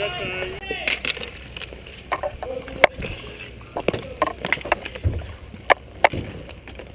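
Roller hockey play up close: sharp clacks and knocks of sticks and puck on the court, the loudest about three seconds in. A player's voice calls out in the first second.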